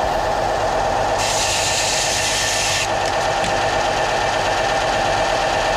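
Bench belt sander running steadily, its motor and moving abrasive belt giving a constant hum with a steady whine. A brighter hiss joins for about a second and a half, from about one second in.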